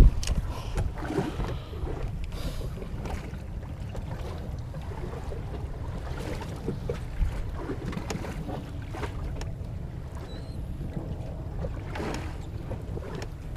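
Steady low wind rumble on the microphone and water slapping against a small wooden boat's hull, with scattered light clicks and knocks from handling a spinning rod and reel.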